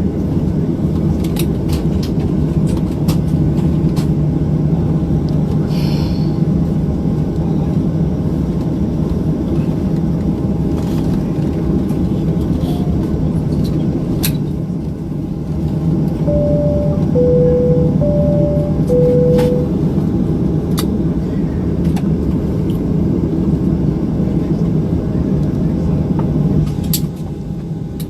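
Steady low rumble of an airliner cabin with its engines running. Past the middle, a two-note high-low chime sounds twice in a row, and small clicks come and go.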